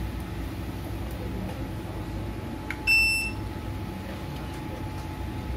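A single short electronic beep, about half a second long, from bench electronics, just after a faint click, over a steady low background hum.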